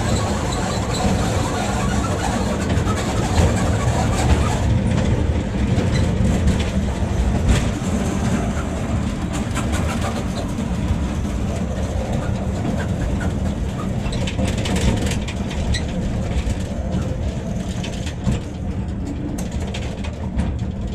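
Toy train ride running along its track: a steady low rumble with scattered clicks and knocks, easing off slightly toward the end.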